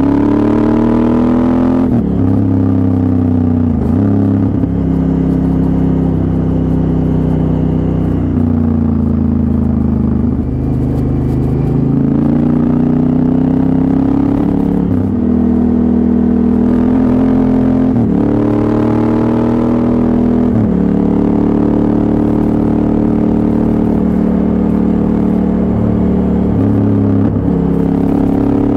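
Honda Africa Twin CRF1000L's parallel-twin engine running under way, its pitch rising and falling with the throttle and dropping sharply several times at gear changes.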